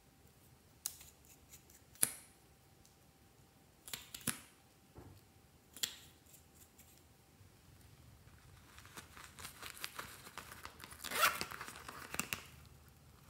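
Close-up handling of small plastic cosmetic items: a few sharp clicks and taps as a lip gloss tube is handled and opened, then, from about nine seconds in, a busy run of scratchy rubbing and clicks, loudest near eleven seconds, as a zippered coin purse is handled.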